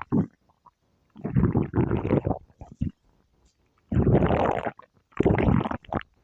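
A person's stomach growling: three gurgling rumbles of about a second each, with short quiet gaps between them.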